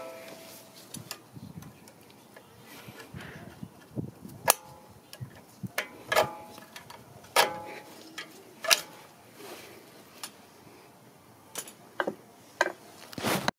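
Irregular sharp metal clicks and clinks, some ringing briefly, as a metal hand tool works against a front brake caliper during brake pad removal.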